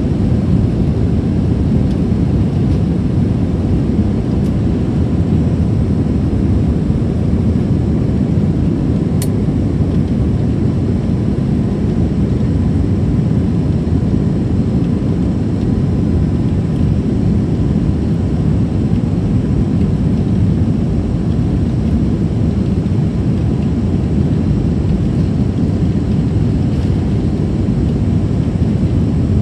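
Cabin noise of an Airbus A321 from a window seat during the takeoff roll: the jet engines at takeoff power and a steady, deep rumble from the runway that holds level throughout. A single brief tick about nine seconds in.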